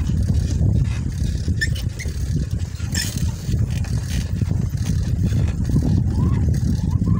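Wind buffeting the microphone and tyre rumble from a bicycle rolling along a concrete road, a steady low rumble throughout. A short sharp click sounds about three seconds in.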